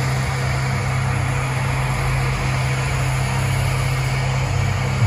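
Steady low electronic drone from a light show's soundtrack over outdoor loudspeakers: an even hum with no beat, held through a quiet passage before the music changes.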